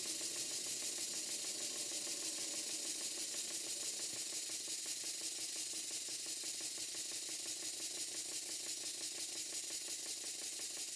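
Stuart Turner twin-cylinder launch model steam engine running steadily on live steam: a rapid, even mechanical clatter over a constant hiss.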